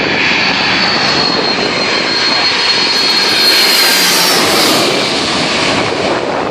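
Jet airliner passing low overhead on its landing approach: loud engine noise with a high whine that slowly falls in pitch, loudest about three to four seconds in.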